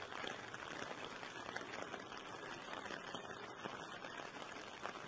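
Soft, steady hiss of heavy rain falling on standing floodwater, with faint scattered patters.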